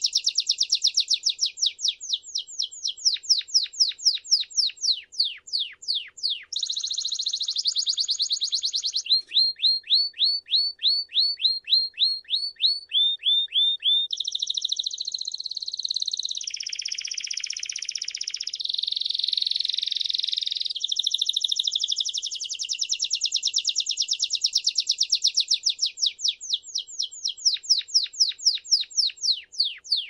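Domestic canary (canário belga) singing a long, unbroken song. It changes phrase every few seconds, moving between runs of quick falling notes, a steadier run of about four notes a second, and fast rolling trills.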